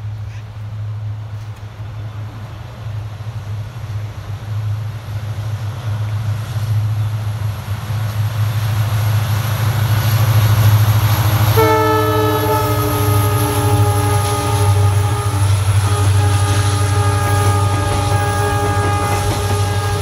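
WDP4D diesel locomotive's two-stroke V16 engine working hard as it hauls a passenger train past, its low roaring hum growing louder as it draws near. A little past halfway a long, steady multi-tone sound sets in, dipping slightly in pitch as it starts, and holds while the coaches roll by.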